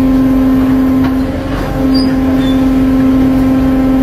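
Fishing boat's machinery running with a loud, steady hum at one unchanging pitch.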